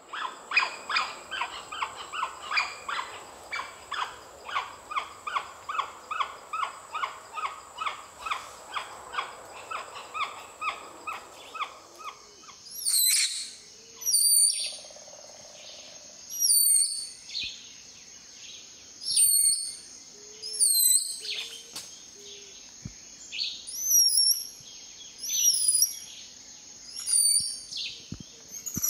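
Geoffroy's spider monkeys calling. First comes a fast run of repeated pitched calls, about two a second, for roughly twelve seconds. Then come loud, high, swooping squeals every second or two. A steady insect drone runs underneath.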